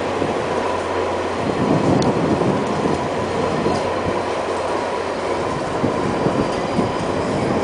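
VIA Rail passenger train running along the track, heard from its side: a steady rush and rumble of wheels on rail with a faint constant whine. Two light clicks come about two and three and a half seconds in.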